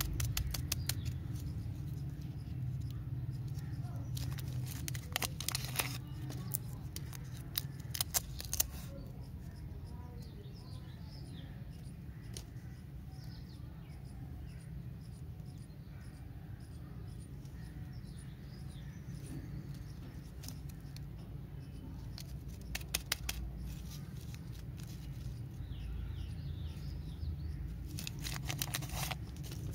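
Candy lollipop wrappers crinkling and tearing as they are unwrapped by hand, in several short bursts, over a low steady hum.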